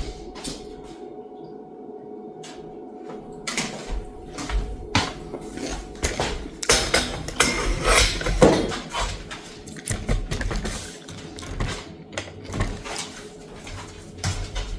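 Kitchen handling noises: dishes, jars and utensils clinking and knocking, with a cluster of knocks in the middle, over a steady hum.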